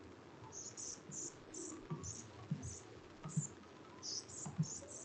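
Soft computer mouse clicks and light knocks, a few each second, with short high-pitched chirps repeating about twice a second behind them.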